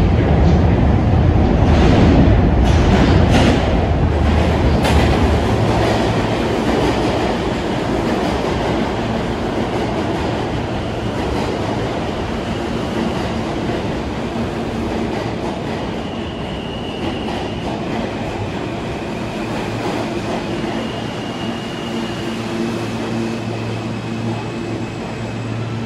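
An R160 subway train pulls into an underground station. It runs in with a loud rumble and wheel clatter over the rail joints, settling into a steadier, quieter rolling rumble as it slows, with two brief high-pitched squeals in the second half.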